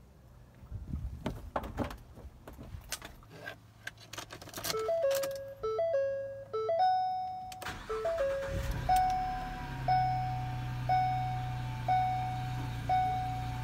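A few knocks and clunks from the van door and seat, then a run of short two-note dashboard warning chimes. Past the middle the van's engine starts and settles into a steady idle, while the seatbelt warning chime rings about once a second.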